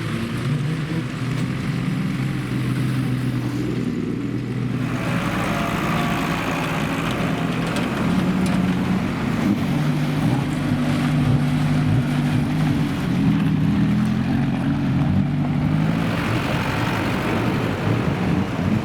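Banger racing cars' engines running hard as several cars race around the oval, with a steady hissing layer that grows from about five seconds in.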